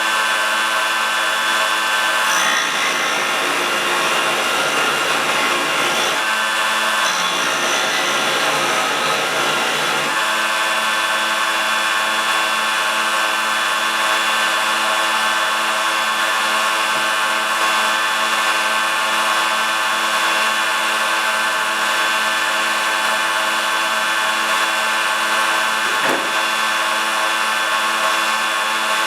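Electric grinder running steadily while a piece of steel bolt is ground against the abrasive twice, from about two seconds in and again for about three seconds from seven seconds in, shaping a bandsaw blade guide; the motor then runs on without contact.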